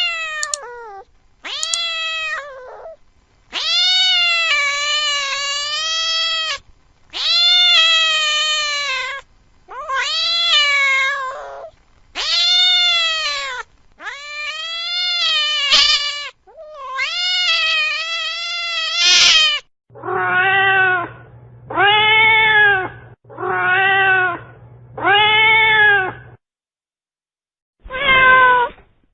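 A cat yowling: a string of long, drawn-out, wavering meows of two to three seconds each, the last one rising at its end. In the last third they give way to shorter, lower arched meows over a faint low hum.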